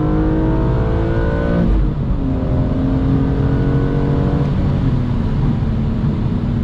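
BMW E46 M3's S54 straight-six pulling hard, heard from inside the cabin through its Eventuri intake and Status Gruppe muffler. The revs climb, fall sharply at an upshift just under two seconds in, climb again, and drop at a second upshift past the midpoint.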